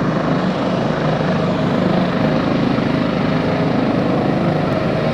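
Helicopter running steadily, a loud, even rotor and engine noise with a fast low flutter.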